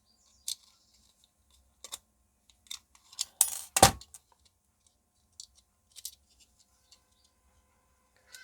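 Small clicks and taps of clock-movement parts and battery contacts being handled and fitted, with a louder clatter and a sharp knock about three and a half seconds in.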